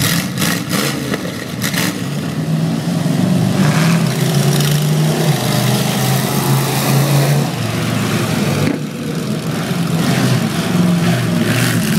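Monster truck's big engine revving and running as it climbs off a pile of crushed cars and drives away, its note rising and falling in steps and dropping briefly about nine seconds in. A few sharp knocks sound in the first two seconds.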